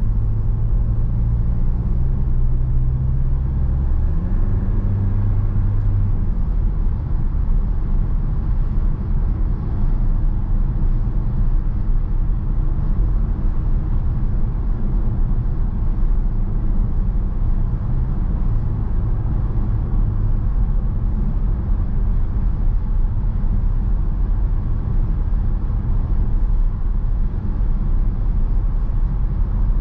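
Mercedes-Benz V 300 d van on the move: its four-cylinder diesel engine and road rumble. The engine note steps a couple of times in the first six seconds, then holds steady.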